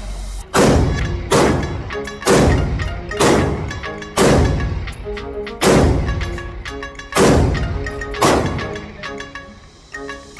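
About eight gunshots fired one at a time at uneven intervals of roughly a second, each a sharp crack with a ringing tail, over background music with mallet-percussion notes.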